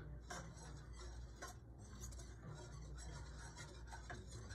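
A whisk stirring a milk mixture in a saucepan, faintly scraping and ticking against the pan, with a few sharper clicks.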